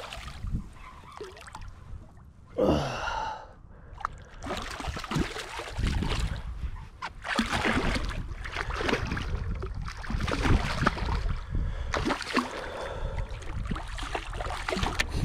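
Water splashing in repeated bursts as a hooked striped bass thrashes at the surface close to a kayak during the fight. About two and a half seconds in, a person's short gasp falls in pitch.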